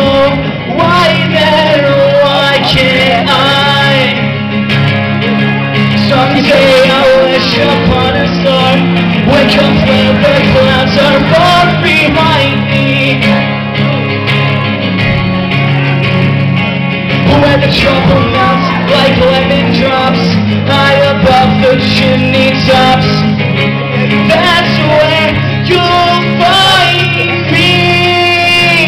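A man singing live while playing an acoustic guitar, continuously and loudly.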